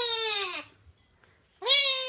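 A cat meowing twice in long, drawn-out calls whose pitch slides downward, about a second apart.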